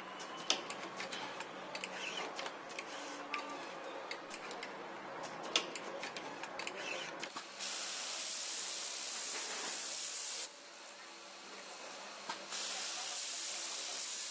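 Automated battery-cell assembly machinery working: quick mechanical clicks and clacks of pneumatic grippers and actuators. About halfway through, a steady air hiss starts and lasts about three seconds, then starts again about two seconds later.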